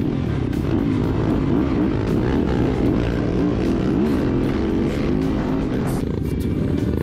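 Yamaha trail bike's engine running under way on a dirt track, its revs rising and falling with the throttle.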